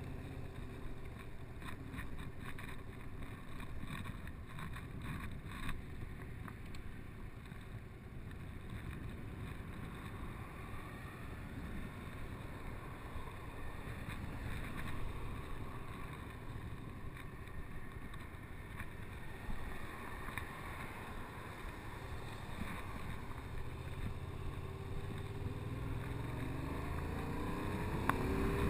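Yamaha MT-07's parallel-twin engine running as the motorcycle is ridden, with wind rushing over the microphone. Near the end the engine note climbs steadily as the bike accelerates.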